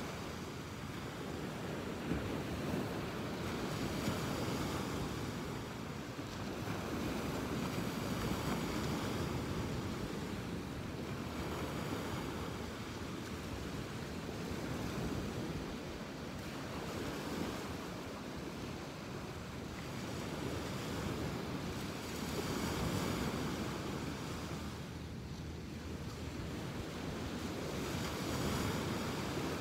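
Ocean surf washing onto the beach, swelling and easing every few seconds, with wind rumbling on the microphone.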